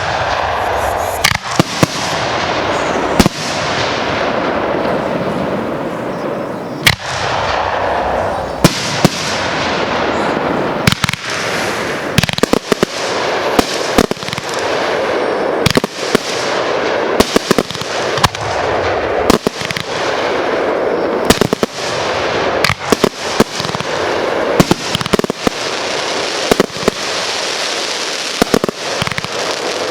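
Aerial fireworks going off in quick succession: a sharp bang every second or so over a continuous crackling hiss from the bursts.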